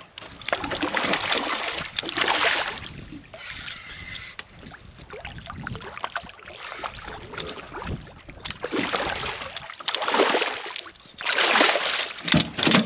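A hooked redfish thrashing and splashing at the surface of shallow, grassy water, in irregular bursts: a long burst in the first few seconds, a quieter stretch, then several more splashes that are loudest near the end as the fish is swung out of the water.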